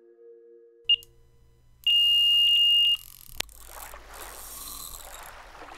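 Carp-fishing electronic bite alarm sounding: one short high beep, then a steady beep at the same pitch lasting about a second, the signal of a fish taking line. Fading music tones come before it, and a click and a soft hiss come after.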